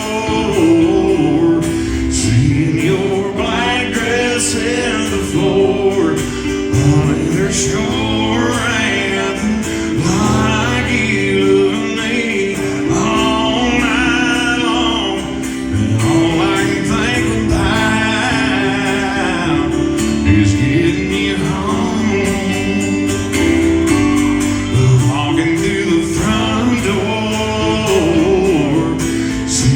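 A singer performing live with band accompaniment, a sung melody over sustained chords.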